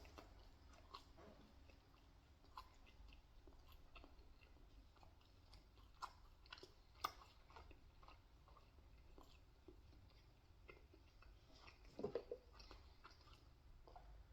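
Faint chewing of pizza: soft, scattered mouth clicks and smacks, with a brief louder cluster near the end.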